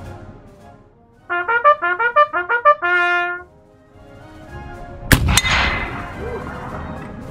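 A bugle sounds a quick call of short brass notes. About five seconds in, a muzzle-loading Parker Hale P58 naval rifle fires with a sharp crack, a second crack close behind, and a long rolling echo.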